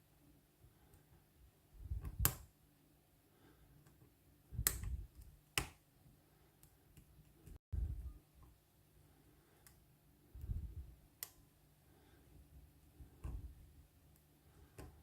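Lock pick working inside a spool-pinned Lockwood oval pin-tumbler lock: a handful of sharp, faint metallic clicks a few seconds apart, with low bumps from handling the lock.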